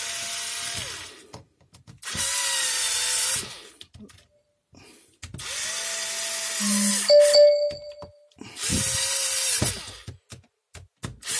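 Cordless Makita drill-driver run in about five short bursts as it drives in a screw, each burst spinning up to a steady whine and winding down. A brief ringing tone about seven seconds in is the loudest moment.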